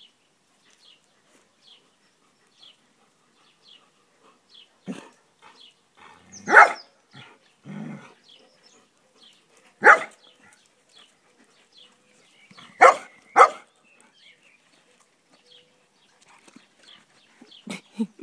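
Dogs barking in short single barks, about six spread out with pauses of a few seconds, two of them close together in the middle.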